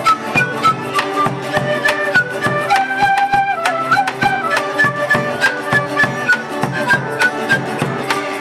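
Andean folk ensemble playing: a cane flute carries a stepping melody over quick, steady strumming from charango and guitar.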